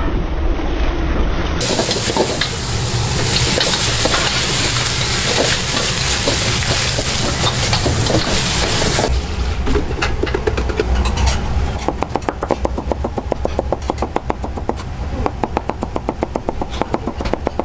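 Hot oil sizzling steadily as shrimp balls fry. About halfway through it gives way to a kitchen knife chopping rapidly on a cutting board, a fast run of sharp knocks.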